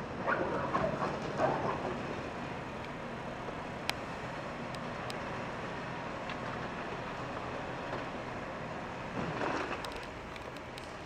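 Volvo L260H wheel loader's diesel engine running steadily while the machine works. There is clattering of blasted rock in the first two seconds, and again about nine seconds in as the bucket goes into the rock pile.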